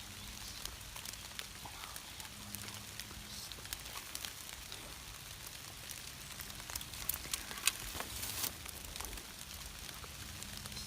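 Light rain: scattered drops ticking and tapping on wet leaves, with a few sharper taps in the second half.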